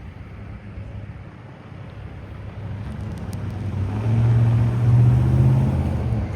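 A vehicle engine running with a low hum, growing louder from about three seconds in and loudest near the end.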